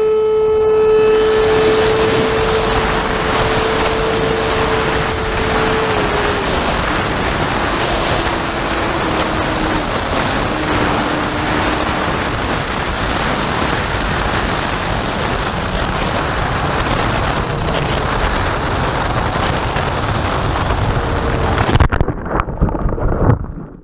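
Wind rushing past an onboard camera on a radio-controlled glider in flight, with a steady electric motor whine that steps down in pitch about six seconds in and fades out around halfway as the plane glides. Near the end comes a knock and scrape as the plane touches down in grass.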